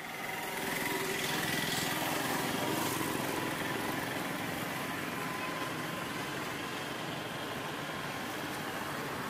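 A small engine running steadily with a fast, even pulse, in street traffic.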